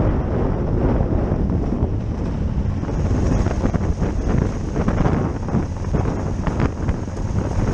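Wind buffeting the camera microphone over the steady running of a Honda Africa Twin's parallel-twin engine, riding a rough dirt track, with scattered knocks from the bike going over the ruts.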